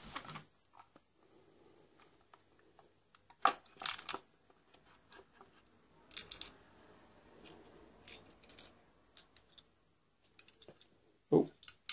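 Scattered clicks and rattles of an airsoft rifle's magazine being handled, as leftover 6mm BBs are worked out of it; the loudest clicks come in a cluster about three and a half to four seconds in, and again about six seconds in.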